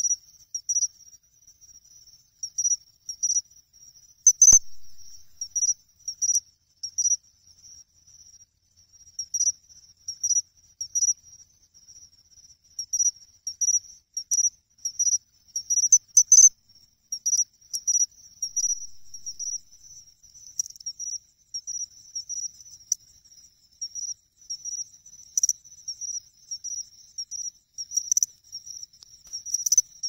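Pine cricket (Xenogryllus marmoratus) singing its 'chin-chiro-rin' call: short, high chirps repeated in a steady run. A few sharp clicks come through now and then.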